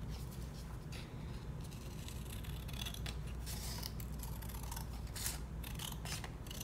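Scissors snipping through paper, a run of short irregular cuts with paper rustling between them.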